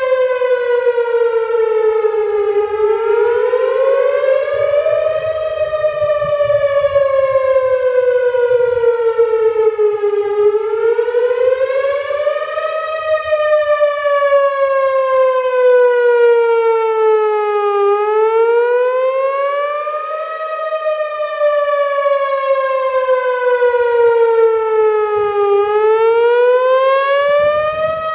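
Whelen Vortex electronic outdoor warning siren sounding a wail tone on a test. Its loud tone climbs over about two and a half seconds, then slides down over about five, and repeats about every seven and a half seconds.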